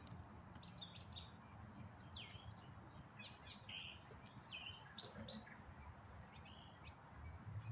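Birds chirping, many short, quick calls scattered throughout, over a faint low rumble of wind on the microphone.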